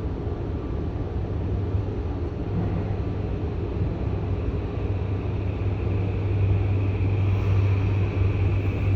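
Tokyo Metro Hanzomon Line subway train running: a steady low hum under rolling noise, with a higher whine growing louder in the second half.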